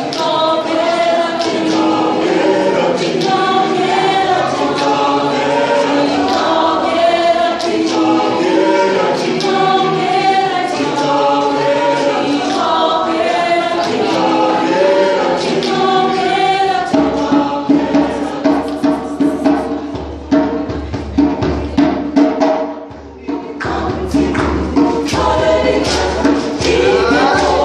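Mixed choir of men and women singing in harmony without instruments. Past the middle a steady rhythmic beat of sharp hits comes in under the voices, and the singing dips briefly before carrying on.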